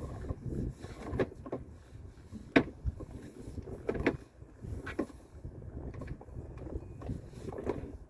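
Irregular knocks and clunks over a low rumble, a handful of sharp clicks spread through, the loudest about two and a half seconds in.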